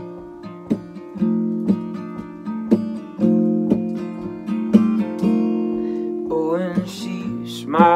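Acoustic guitar strumming chords in an even rhythm, strokes falling about every half second to a second. A man's singing voice comes in over it about six seconds in.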